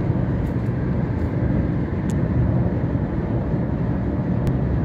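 Steady road and drivetrain noise inside a moving hybrid car's cabin, a low rumble with a few faint ticks.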